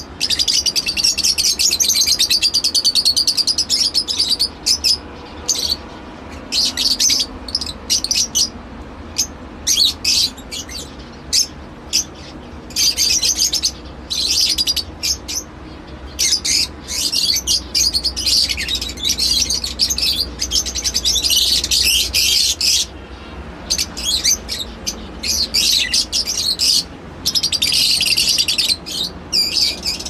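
Caged Fischer's lovebirds chirping shrilly in rapid runs, some lasting several seconds, broken by short pauses.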